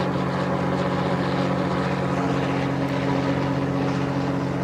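Fishing boat's engine running steadily with a low, even hum.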